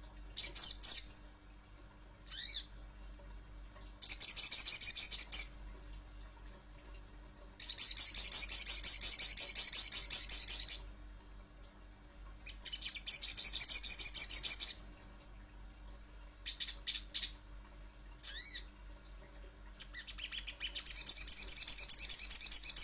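Crimson sunbird (sogon) song from a lure recording: high, rapid trills of quickly repeated notes in bursts of one to three seconds, with short phrases and pauses between them.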